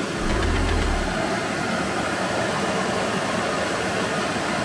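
Water rushing steadily over a small shallow river cascade. Low wind buffeting on the microphone in the first second.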